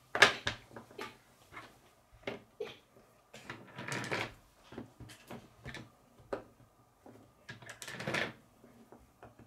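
Plastic K'nex pieces clicking and snapping as they are pressed together, with a sharp snap just after the start. Loose pieces clatter twice, in the middle and near the end, as they are picked from the pile.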